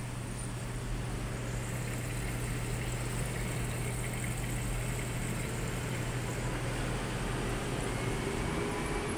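Electrolux EWF14023 front-load washing machine running: a steady low hum over an even whooshing noise, with a faint rising whine joining near the end.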